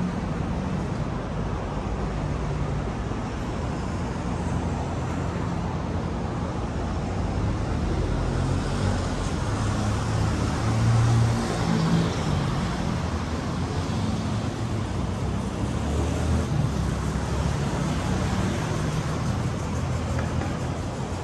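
City road traffic: car and bus engines running and tyres on the road in a steady wash, swelling about halfway through as a louder vehicle passes close by.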